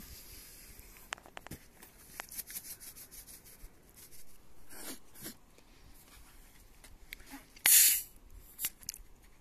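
Light clicks and taps of cutlery and dishes at a meal table, with a short loud hiss a little before the eight-second mark.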